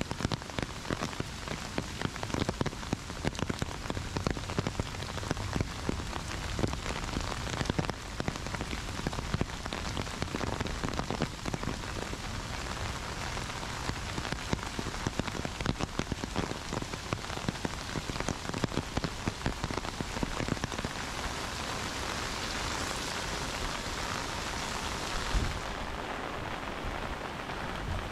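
Heavy rain falling steadily, a dense hiss full of close drop ticks. A single louder thump comes near the end, and the hiss turns slightly duller just after it.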